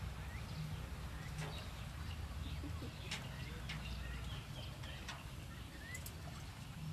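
Caged quails giving short, high chirps, scattered irregularly over a steady low rumble.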